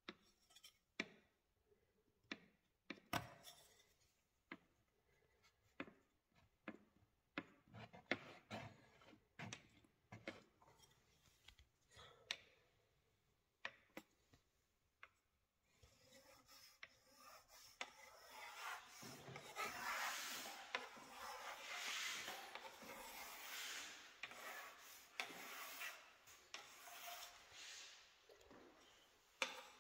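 Wooden stick scraping along a silicone sealant joint in a tiled corner. The first half has scattered short scrapes and taps. From about halfway it turns into a longer, continuous rubbing scrape.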